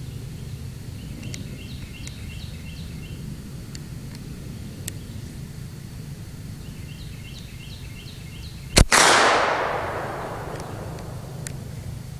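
A single rifle shot about nine seconds in, its report echoing and dying away over a second or so. Before it there is only a steady low background and runs of quick high chirping.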